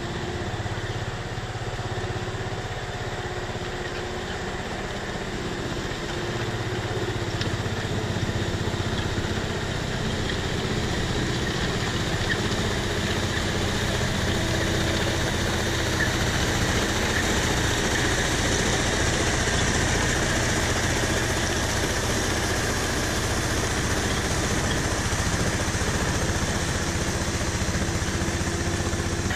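A homemade tank's engine running steadily as the tank drives and tows a car chassis. It gets somewhat louder several seconds in.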